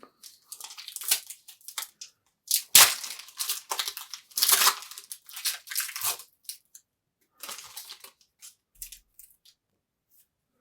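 Crinkling and tearing of a foil trading-card pack wrapper being ripped open and handled, in irregular crackly bursts, loudest around three and four and a half seconds in.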